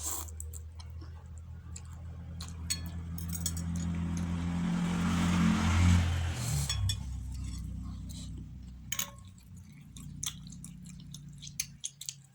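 Utensils clinking against a bowl several times during a meal, over a low engine hum that swells to about halfway and then fades, as of a vehicle passing.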